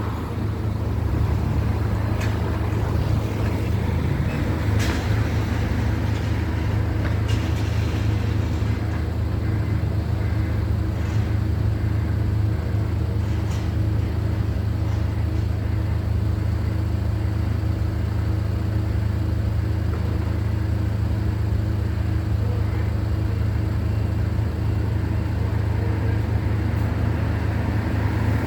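A steady low engine rumble that holds even throughout, with a few faint knocks or clinks in the first half.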